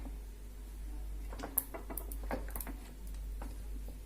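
Faint kitchen handling noises: a few light clicks and taps, the sharpest about one and a half seconds in, over a low steady hum.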